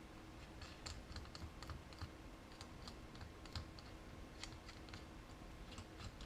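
Faint, irregular light clicks and ticks of small steel parts being fitted by hand: a stainless steel washer and thumb nut going onto a draw bolt.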